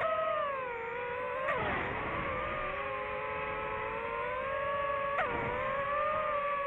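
DJI FPV drone's motors and propellers whining in flight, the pitch dipping and rising with the throttle. Two brief sharp blips, about a second and a half in and again past five seconds, are each followed by a quick drop and recovery in pitch.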